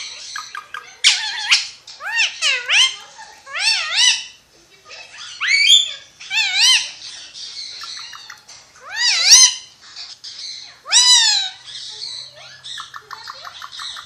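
Ringneck parakeet calling: a run of short, loud squawks that rise and fall in pitch, about one a second, with quick clicking chatter in between.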